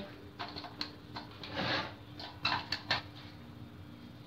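A few light clicks and knocks with a brief rustle, like small objects being handled, over a faint steady hum.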